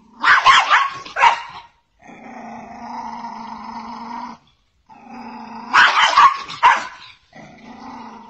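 Small black-and-tan dog barking in two quick flurries, one at the start and one past the middle. Between and after the flurries it gives long, steady, quieter growls.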